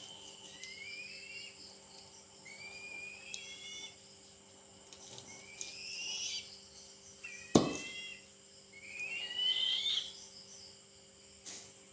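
Young eagle giving high, rising whistled calls, about five of them, each about a second long and a second or two apart, the begging calls of a hungry eaglet. A single sharp click comes about halfway through.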